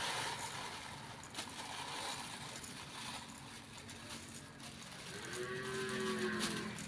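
Raw rice poured from a plastic bag into a plastic basin, with faint rustling and light clicks. About five seconds in comes a single long animal call lasting just over a second, the loudest sound here.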